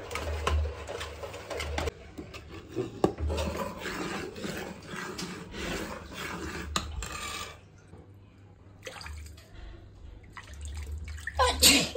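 Kitchen food-prep sounds: clicks and scrapes of food being handled in steel bowls and pots, then water splashing as raw chicken is washed by hand. A short, loud voice-like sound falling in pitch cuts in near the end.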